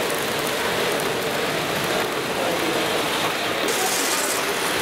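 N gauge model trains running on the layout track: a steady rolling rattle of wheels and small motors. The sound changes abruptly about three and a half seconds in.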